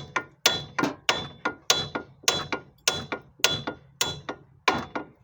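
Hammer striking steel again and again, about eight heavy blows at roughly one every 0.6 s, each followed by a lighter bounce blow, with a clear metallic ring. This is the hammer work on the car's front suspension, typical of driving a bolt out.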